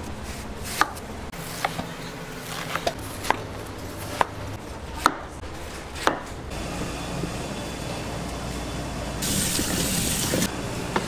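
Knife chopping fruit on a cutting board: sharp, irregular chops about once a second for the first six seconds. Near the end comes about a second of louder rushing noise.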